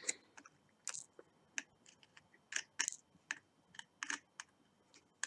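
Light, irregular clicks of metal tweezers picking diamond-painting drills out of a plastic tray, with drills tapping against the tray.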